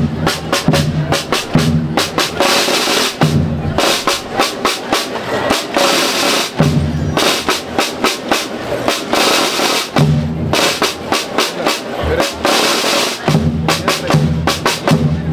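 A school marching percussion band (banda rítmica) playing a march: rapid snare drum strokes over repeated low bass drum beats.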